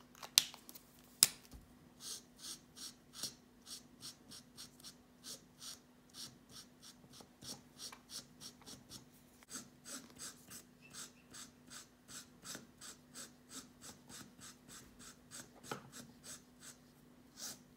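Stampin' Blends alcohol marker scratching over a narrow woven ribbon in quick back-and-forth colouring strokes, about three a second. Two sharp clicks come in the first second or so.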